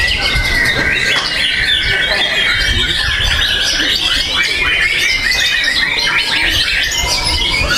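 White-rumped shama (murai batu) singing a fast, unbroken stream of varied whistled phrases and trills.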